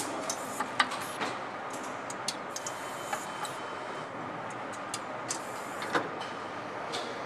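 Factory floor noise with a steady background hum and scattered sharp metallic clicks and taps from hand work on motorcycle cylinder heads, the loudest about a second in and again near six seconds.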